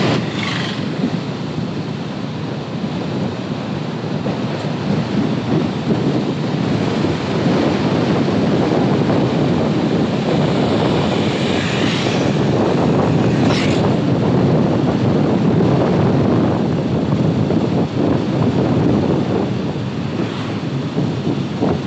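Wind buffeting the microphone: a steady, loud rushing noise with a couple of brief higher whooshes about twelve and fourteen seconds in.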